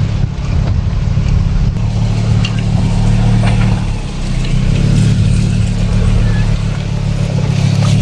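Car driving, a steady low engine and tyre hum heard from inside the cabin, easing off briefly about four seconds in.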